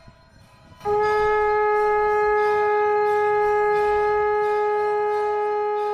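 Conch shell (shankh) blown in one long, steady note that starts about a second in, rising a little in pitch as it begins.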